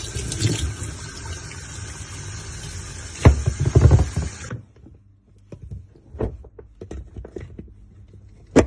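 Water running in a washing machine tub, with two heavy thumps a little past the middle, then the water stops abruptly. After that come scattered small clicks and knocks of washing-machine parts being handled, and a sharper knock at the end.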